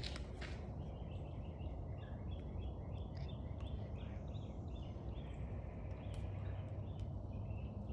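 A songbird singing a long run of quick chirping notes, over a steady low outdoor rumble, with a couple of footsteps at the very start.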